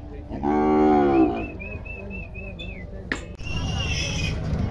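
Young Nelore cattle in a crowded pen: one animal bawls loudly once, the call sliding down in pitch at its end. A high, warbling whistle follows for about a second.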